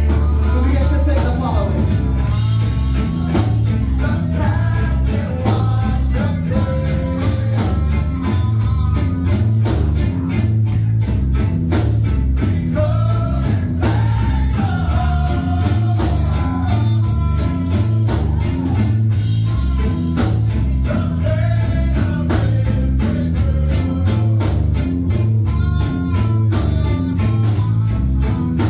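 Rock band playing live: drums, a busy repeating bass line, and a sliding sung melody over the top, loud and unbroken.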